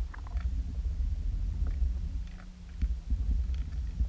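Underwater noise around a camera moving through the water with towed fishing lures: a deep, uneven rumble of water flow with a steady low hum and scattered faint clicks and ticks.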